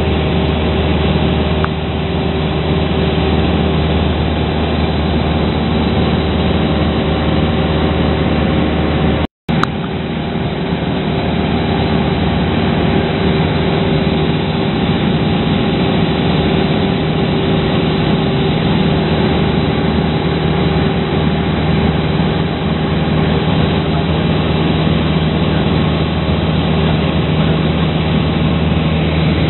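Steady drone of a Cessna 172's piston engine and propeller in cruise flight, heard inside the cabin: a constant low hum of engine tones under wind and airframe noise. The sound cuts out for a moment about nine seconds in.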